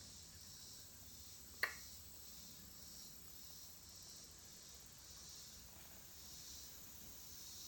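Near silence with a faint steady high hiss, broken by one short sharp click about one and a half seconds in.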